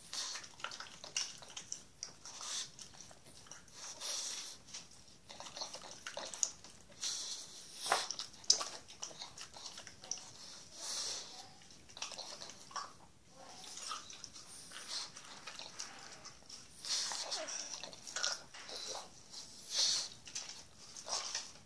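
A pug chewing cantaloupe, with irregular smacking chews and clicks of its mouth.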